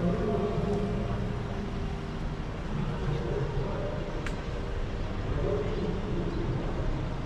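Town ambience heard from above: a steady low hum of distant traffic, with faint, indistinct voices now and then.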